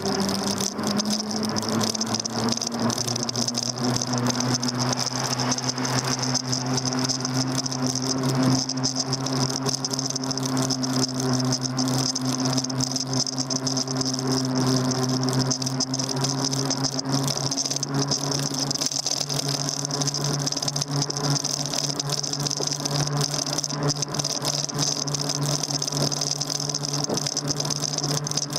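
Daymak Max e-bike's electric motor whining as the bike pulls away, its pitch rising over the first couple of seconds and then holding steady at cruising speed. Constant rattling from the bike and handlebar-mounted camera over the road runs alongside.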